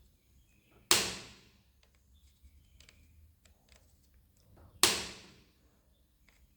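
Two sharp snaps about four seconds apart, each dying away over half a second, with faint small clicks between them. They come from hand-tool work removing the zero-ohm resistors on the CKV line of a TV panel board.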